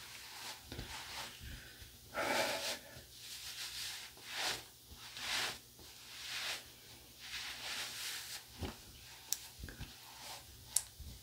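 Terry-cloth towel being rubbed over a freshly shaved face and head: a run of soft rubbing swishes about a second apart, with two sharp little clicks near the end.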